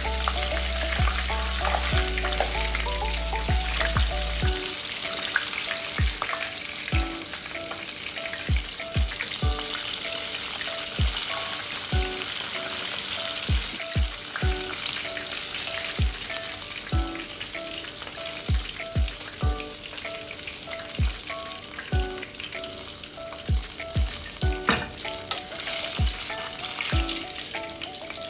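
Coated chicken pieces deep-frying in hot oil in a pot: a steady, dense sizzle of bubbling oil.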